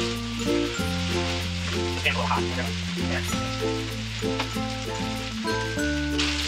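Fried rice with chicken and vegetables sizzling in a hot wok while a slotted spatula stirs and scrapes through it, with a few light knocks against the pan. Background music with sustained low notes plays underneath.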